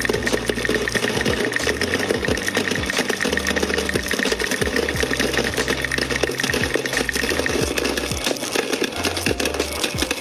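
A small machine running steadily with rapid clicking, over a bass line of background music.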